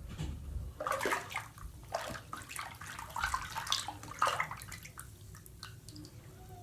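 Bathwater sloshing and splashing in a filled bathtub in irregular bursts, as a person moves about in it.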